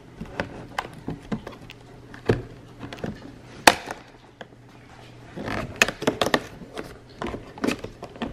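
Fingernails and fingertips tapping and pressing on a cardboard advent calendar box, with irregular sharp clicks and knocks of cardboard as a perforated door is worked open. The loudest knock comes a little before the middle, and a quick cluster of clicks follows later.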